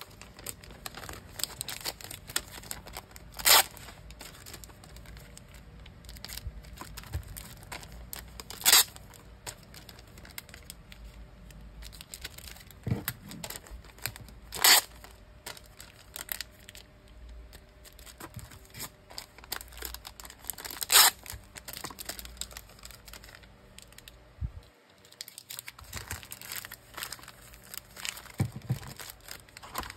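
Clear plastic (OPP) packing bags and sticker sheets handled for packing: a steady crinkling and rustling of thin plastic with small clicks, broken four times by a loud, sharp tearing sound.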